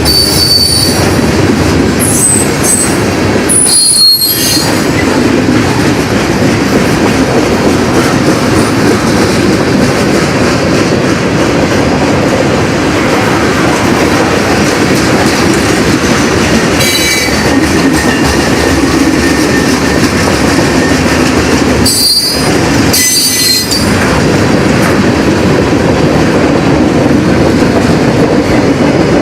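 Freight train rolling past close by: a steady loud rumble of cars on the rails, with short high-pitched wheel squeals near the start, a few seconds in, about halfway through, and twice more later on.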